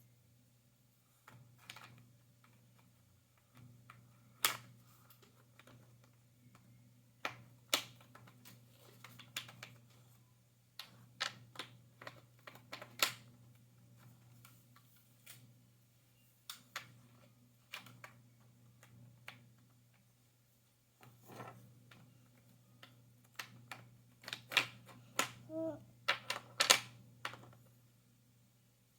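Jigsaw puzzle pieces being handled and fitted together, making irregular clicks and taps on a hard surface. The taps come in small clusters and grow louder and busier near the end, over a steady low hum.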